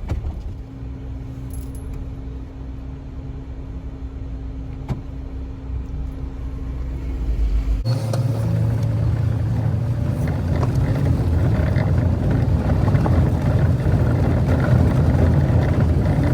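Jeep driving along a dirt trail: a steady low rumble of engine and tyres on gravel. About halfway through the sound changes abruptly and grows louder and coarser, with a steady low engine drone.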